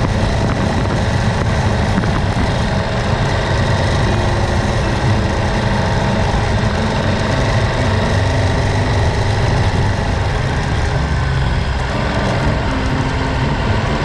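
Aprilia Tuareg 660's parallel-twin engine running steadily under way.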